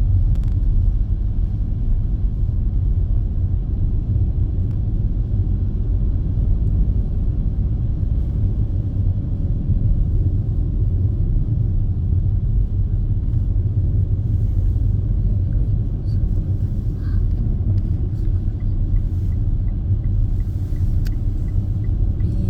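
Car driving along a snow-covered highway: a steady low rumble of road and engine noise.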